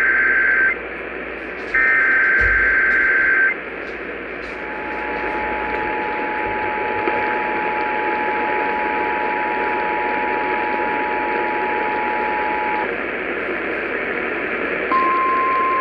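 Emergency Alert System test tones received over AM radio with static hiss: two buzzy SAME header data bursts, then the two-tone 853/960 Hz attention signal held for about eight seconds. Near the end the single 1050 Hz NOAA Weather Radio alert tone starts, the sign that NOAA Weather Radio originated the alert.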